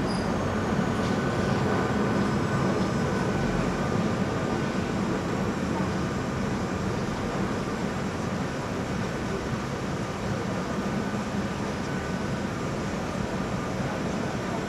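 Marzilibahn funicular car (Von Roll, 1974) running down its rails on the cable: a steady rumble with a faint thin whine in the first few seconds.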